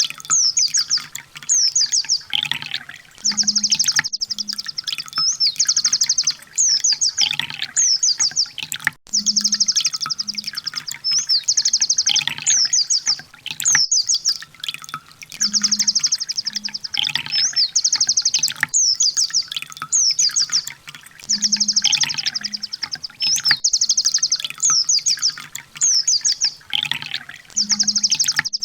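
Kolibri ninja sunbird song: rapid high-pitched trilling and chattering phrases, one after another. The same sequence repeats about every six seconds, as a looped recording.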